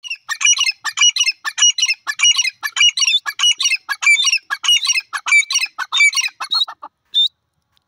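Grey francolin (teetar) calling loudly: a long series of repeated call phrases, about two a second, ending with one short note about seven seconds in.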